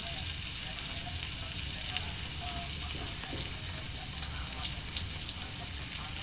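Steak sizzling and spitting in a hot frying pan: a steady frying hiss dotted with small crackles, over a low rumble.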